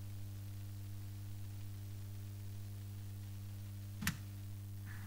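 Steady low hum in a quiet hall, with one sharp click about four seconds in.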